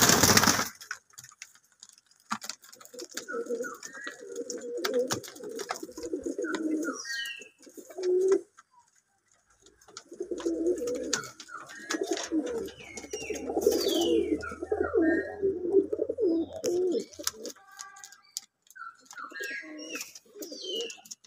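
Fantail pigeons cooing in a loft: long stretches of low, rolling coos broken by short pauses, with high falling chirps in between. A short loud burst of noise comes right at the start.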